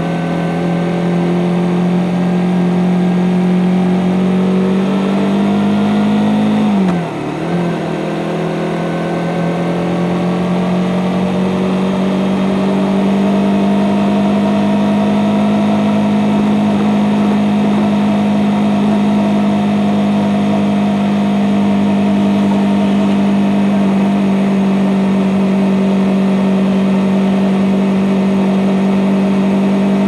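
Suzuki GSX-S150's single-cylinder engine running through its stock exhaust under way, a steady note that slowly rises in pitch. About seven seconds in the engine note drops sharply for a moment and then picks up again.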